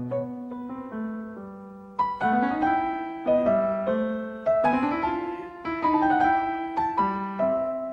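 Background music: a solo piano piece of an old classical tune, single notes and chords struck and left to ring and fade.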